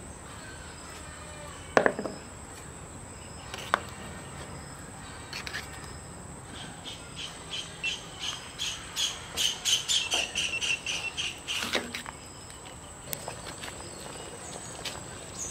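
Insect chirping outdoors: a run of short, high chirps about three a second, lasting some five seconds midway, over a faint steady high whine. A few sharp knocks are heard, one near the start, one a little later and one near the end of the chirping.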